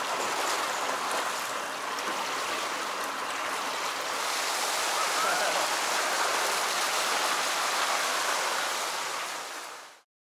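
Spa pool water jets and a wall spout pouring into the pool: a steady rushing splash that fades out near the end.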